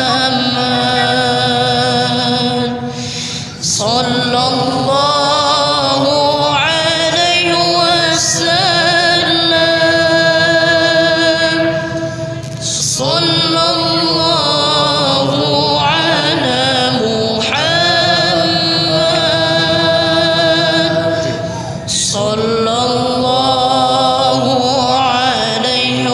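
Background music: an Arabic sholawat (Islamic devotional song in praise of the Prophet), sung in long drawn-out phrases with short pauses between them.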